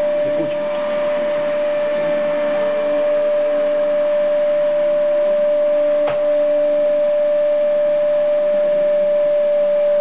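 Vacuum cleaner running with a steady, even motor whine, with a single knock about six seconds in.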